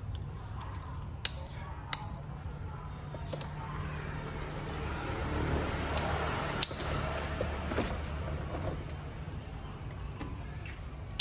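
A few sharp clicks and knocks from a plastic drink bottle and its cap as a baby monkey handles and mouths them, the loudest a little past the middle, over a steady low hum.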